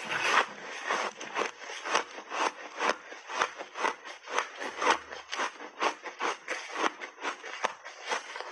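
Refrozen berry ice being chewed: a steady run of crisp crunches, about two to three a second.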